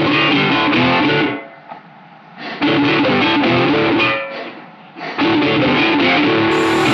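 Music: a distorted electric guitar riff, played in three loud bursts with short breaks between them.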